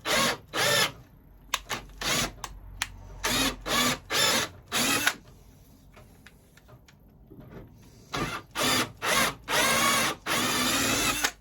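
Power drill with a small Forstner bit, run in short bursts of a fraction of a second each, boring hardened gripfil adhesive out of a wooden chair's joint socket. After a pause it runs again in quick bursts, then once for about a second near the end.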